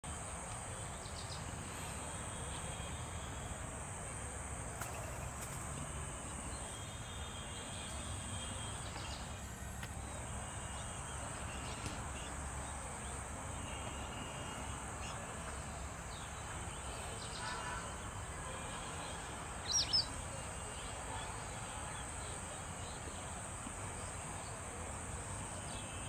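Outdoor ambience: a steady high-pitched drone with scattered faint bird chirps, and a louder quick double chirp from a bird a little past the middle.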